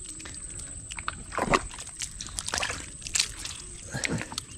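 Wet mud squelching as a hand grabs a swamp eel and pushes it into a mud-caked pot: a few separate wet slaps and sucks, the loudest about a second and a half in.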